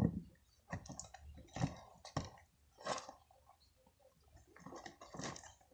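Faint, sticky squishes and small clicks of fluffy slime (clear glue and shaving foam) being worked and mixed as activator goes in, as a handful of short separate sounds scattered through.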